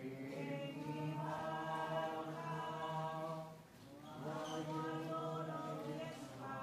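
A choir sings a slow hymn in long, held notes, in two phrases with a short break a little past halfway.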